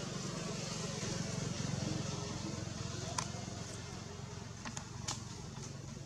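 Steady low engine hum, like a motor vehicle running at a distance, over an even background hiss, with a few sharp clicks about three seconds in and twice near five seconds.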